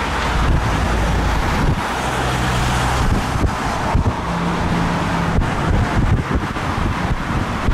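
Rolls-Royce Trent 772B turbofans of an Airbus A330 at takeoff power as it climbs away: a steady, loud, deep rumble of jet noise, with wind buffeting the microphone.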